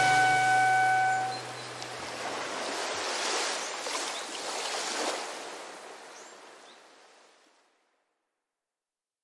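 The song's last held chord dies away, leaving small waves washing gently on a sandy beach. The wave sound swells and falls a few times and then fades out about seven seconds in.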